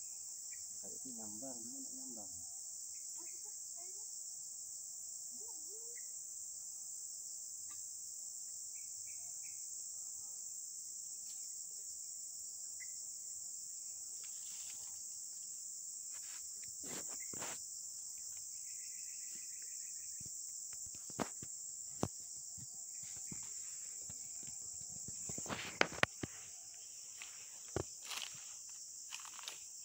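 Steady, high-pitched insect chorus that runs without a break. Scattered sharp knocks and rustles break in, most of them in the second half.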